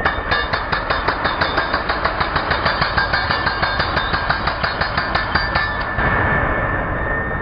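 Ingco 16 kg electric concrete breaker hammering: a rapid, even train of strikes, about five or six a second. The strikes stop about six seconds in while the tool keeps running with a steady whine.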